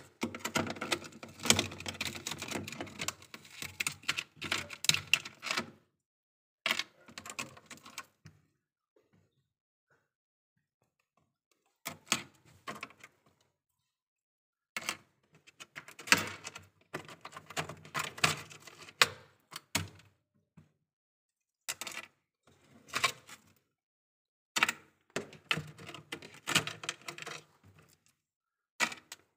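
Freezer frost and thin ice crunching and crackling in bursts of rapid crackles, each one to several seconds long, with short silences between them.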